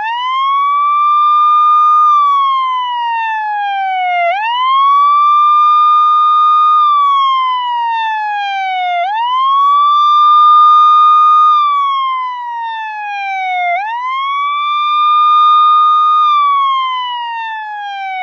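Police car siren sounding a slow wail. From silence the pitch winds up quickly, holds high for about two seconds, then falls slowly, repeating four times about every five seconds. It cuts off suddenly near the end.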